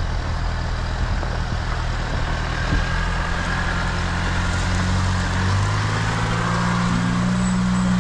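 Four-wheel-drive vehicle's engine running steadily at low speed over a dirt track, with tyre and body noise. The engine note rises a little about five and a half seconds in.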